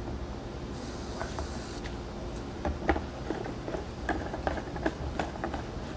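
A potato cannon being charged: a hiss of propellant sprayed into the combustion chamber for about a second, followed by scattered small clicks and knocks as the cannon is handled.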